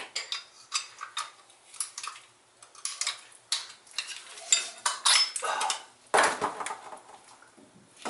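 Metal clinks and scrapes of a wrench and a front disc brake caliper being worked loose from the truck's spindle: many short sharp clicks, with a longer scraping sound about six seconds in.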